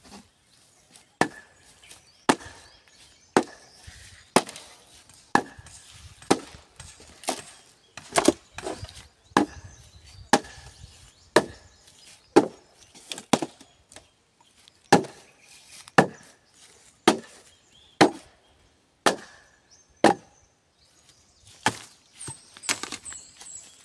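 A blade chopping into bamboo in steady strokes, about one a second, each a sharp crack with a short ring. There is a brief pause midway, and lighter, quicker knocks come near the end.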